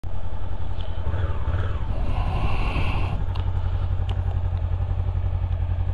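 Motorcycle engine idling at a standstill, a steady low pulsing rumble.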